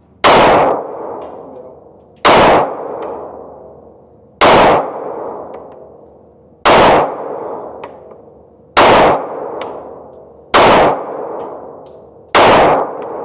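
Seven handgun shots fired at a steady pace, about two seconds apart, each sharp crack followed by a long echoing tail.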